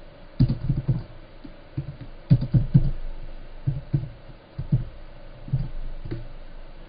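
Typing on a computer keyboard: about fifteen uneven, dull keystrokes in short clusters.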